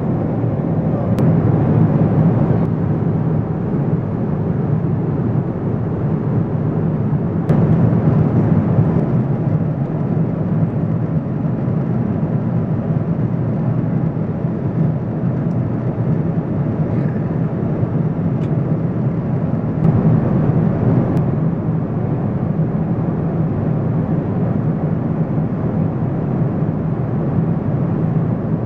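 Steady cabin noise of a Boeing 777-200ER in cruise: a low, even rush of airflow and engine sound.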